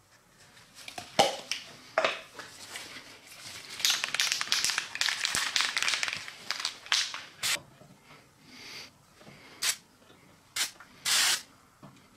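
Aerosol can of etch primer being shaken, with the mixing ball rattling inside for a few seconds, then several short hisses of spray near the end, the last one a little longer.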